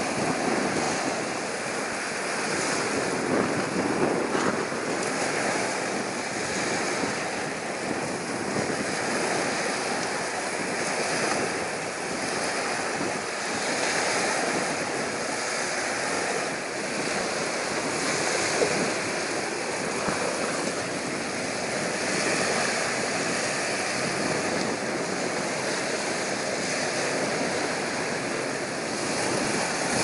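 Strong wind blowing across the microphone, mixed with the wash of choppy waves, as a steady rushing noise.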